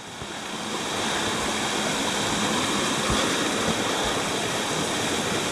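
Small mountain stream rushing and splashing over rocks, a steady water noise that swells over the first second and then holds.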